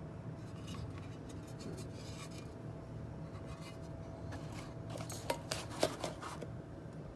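Light clicks, taps and scrapes of small hard parts being handled, with a few sharper clicks about five to six seconds in, over a steady low hum.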